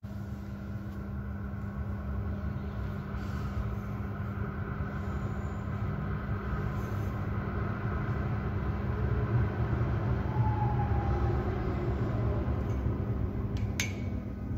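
Dortmund Stadtbahn light-rail train approaching through an underground station. A steady low rumble swells slightly around the middle, over a constant hum, with a brief faint falling whine and a single click near the end.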